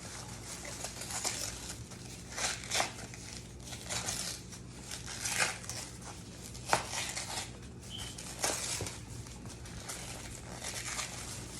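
Plastic wrap crinkling and rustling in irregular bursts as it is handled and pulled off a wrapped block, with a few sharper crackles.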